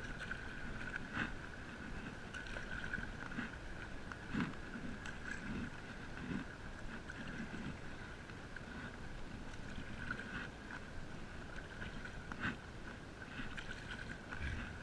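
A stand-up paddle board's paddle dipping and pulling through the water, with splashing and lapping at irregular strokes, over a steady high hum.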